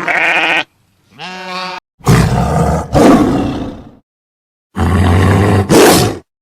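A string of separate animal calls cut one after another, with silence between them: two short pitched calls, then loud, rough roars, two of them about a second apart and a longer one near the end.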